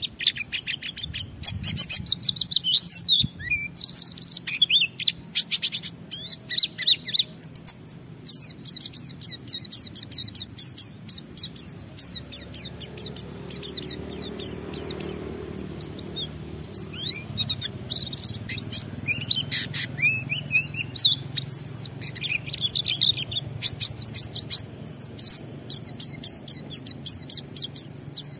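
White-eye (pleci) singing a long, continuous song of rapid high chirps and quick falling notes, the fast unbroken singing that keepers call ngalas, used as a lure to set other white-eyes singing.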